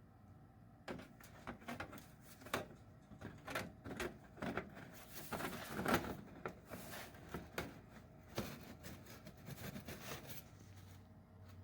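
Irregular clicks, knocks and rustling from parts being handled, with a longer rustle about six seconds in.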